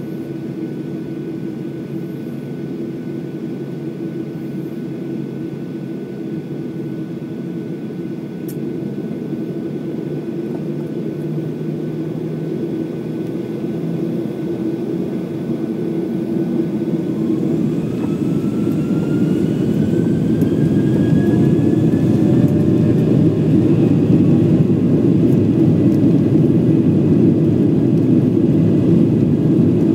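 Boeing 737-900's CFM56-7B jet engines heard from inside the cabin over the wing: a steady hum, then from about halfway a rising whine as the engines spool up and the rumble grows about twice as loud, as the airliner begins its takeoff roll.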